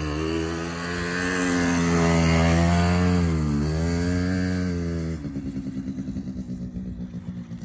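Small quad (ATV) engine revving, its pitch rising and falling with the throttle, with two brief dips. About five seconds in it gives way to a steady, rapidly pulsing engine note.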